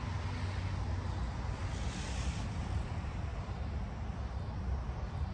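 Steady outdoor background noise: a low rumble with a faint hiss above it, with no distinct events.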